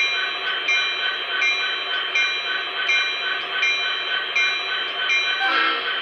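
Sound system of an MTH HO-scale SD70M-2 model diesel locomotive playing its PFA sequence through the model's speaker. The diesel engine runs steadily under a ringing strike that repeats about every three-quarters of a second, broken by a short, different burst of sound near the end.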